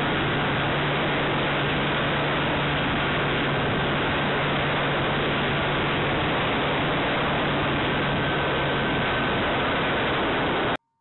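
Onboard-camera audio from an RC model plane in flight: a steady rushing roar of airflow and engine noise over a low steady hum. It cuts off suddenly near the end.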